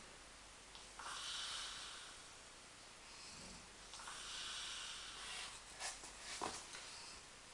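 A sleeping pet snoring: slow, long hissing breaths with a short low snort between them, about every three seconds. A few sharp clicks come near the end.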